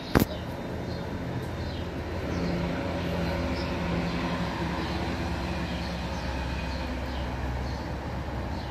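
Low, steady rumble of distant vehicle traffic, swelling a little partway through, with a sharp click just at the start and faint short high chirps scattered throughout.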